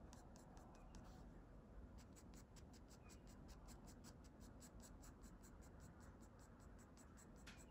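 Graphite pencil scratching faintly on drawing paper in quick, short shading strokes, about five or six a second, with a pause of about a second near the start.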